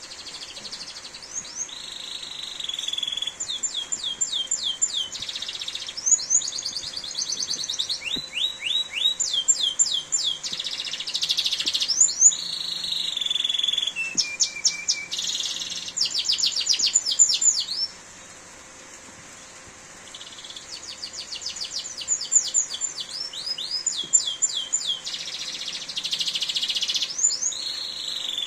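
Domestic canary singing a long song of rapid trills, rolling phrases and fast runs of repeated sweeping notes. It breaks off for about two seconds two-thirds of the way through, then resumes. A faint steady hiss of heavy rain lies underneath.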